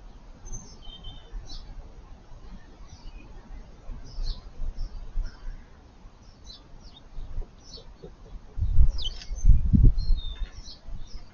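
Small garden songbirds at a feeder giving short, high chirps and call notes on and off. Near the end comes a louder low rumbling of thuds lasting about a second and a half.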